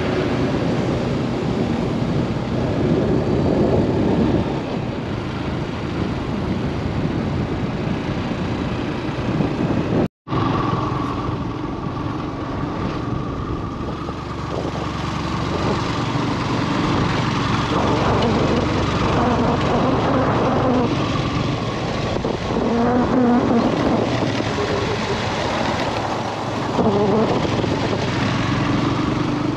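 Motorcycle engine running under way, with steady wind rushing over the microphone; the sound cuts out for a moment about ten seconds in.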